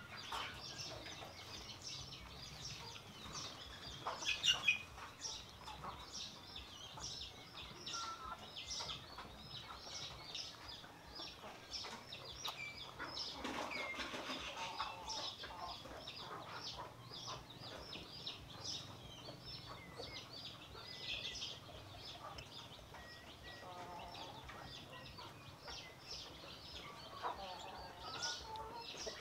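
Chickens clucking, with many short high calls running throughout and a brief louder burst about four seconds in.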